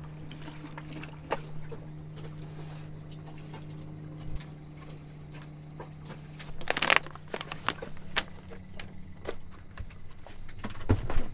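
Rustling, crinkling and clicking as packaging and unpacked items are handled, with a loud rustle about seven seconds in and another near the end. A steady low hum runs underneath and fades about halfway through.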